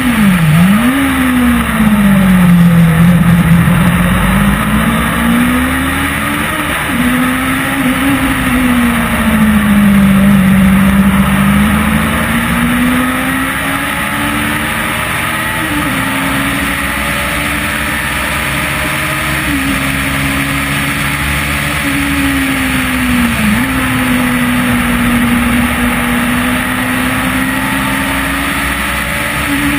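Onboard sound of a track car's engine lapping a circuit. The engine note rises and falls slowly through the corners and straights, with a few sudden short dips in pitch where the throttle is lifted or a gear is changed. Wind and road noise run steadily underneath.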